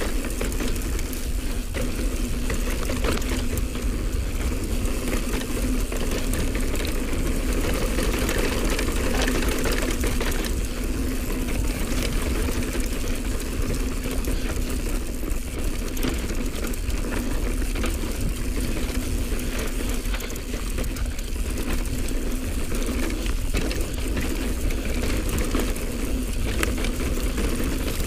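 Mountain bike riding down a rough dirt singletrack, heard from a camera on the rider: a steady rush of wind on the microphone with tyre noise and a constant fine rattle and clatter of the bike over the trail, over a steady low hum.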